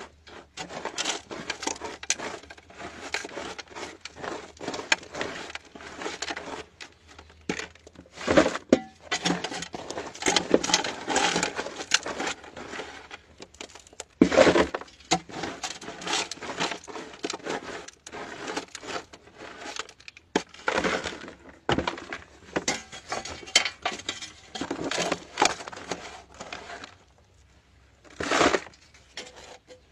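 Hand tool chipping and scraping at rock and earth in a narrow dug-out tunnel: irregular knocks and scrapes, with a short pause near the end.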